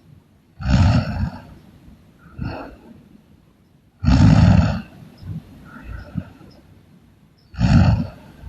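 A person snoring loudly: three heavy snores about three and a half seconds apart, the middle one the loudest, with a softer snore between the first two.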